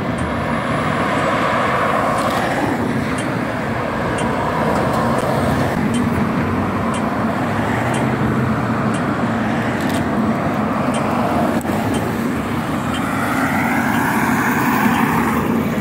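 Road traffic on a city street: cars driving past on asphalt with tyre and engine noise, one car passing close about two seconds before the end.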